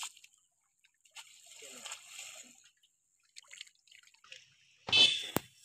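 Pond water splashing, sloshing and dripping as a fishing net is hauled in by hand, with a sudden loud burst near the end.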